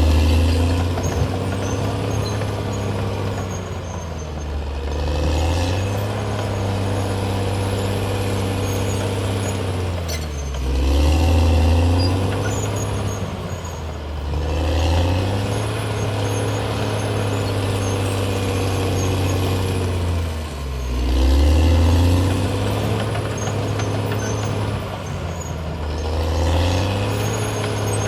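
Caterpillar D6R XL bulldozer's diesel engine working, its note sinking lower and louder and then climbing back, over and over about every five seconds.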